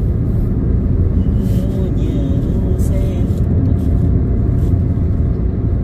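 Steady low road and engine rumble inside a moving car cruising along a highway.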